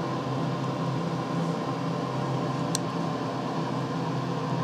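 Steady hum of a kitchen appliance's fan motor, with a few fixed tones in it and no change in level. A single brief tick about two and three-quarter seconds in.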